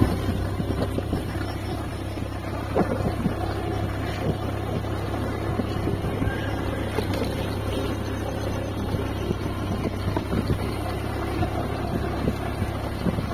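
Steady low engine hum and road rumble of a slowly moving vehicle, with wind buffeting the microphone and a few faint knocks.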